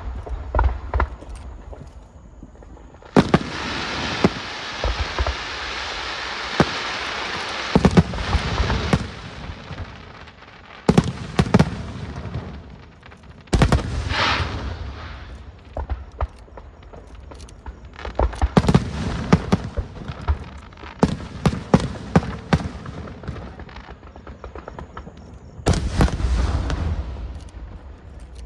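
Fireworks display: repeated sharp bangs and booms mixed with long spells of dense crackling and hissing, with short lulls between volleys.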